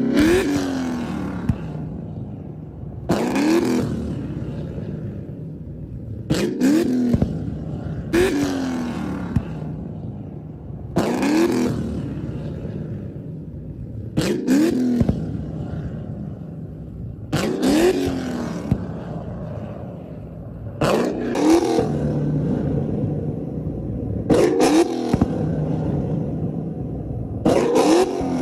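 Ford Mustang's exhaust as the engine is revved in short blips, about every three seconds. Each blip ends in sharp pops and bangs from the tailpipes as flames shoot out, then the engine falls back to a steady idle.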